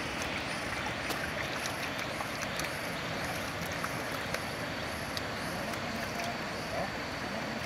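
Shallow river water running steadily, with scattered faint clicks.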